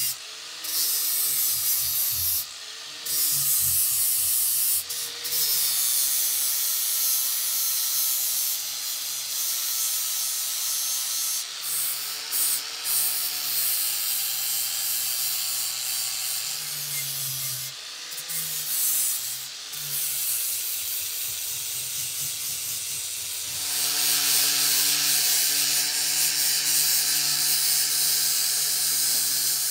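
Angle grinder with a flap disc grinding rust from a pitted steel axe head: a continuous grinding hiss over the motor's hum, the hum's pitch sagging and recovering again and again. About 24 s in the hum holds steady and the hiss gets louder.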